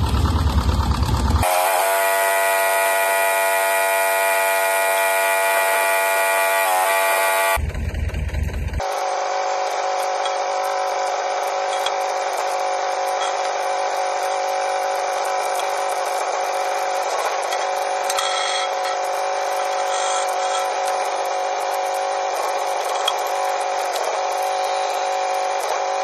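Homemade RC excavator's hydraulic pump running with a steady whine. Its tone changes about eight seconds in, with a brief low rumble at the start and again at the change.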